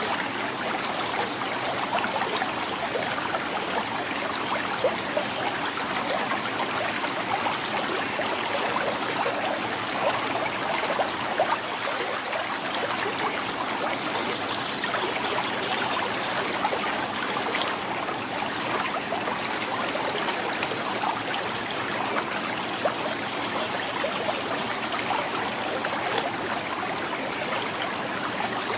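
Shallow river flowing and gurgling over stones in a steady babble, with small trickles and splashes flickering through.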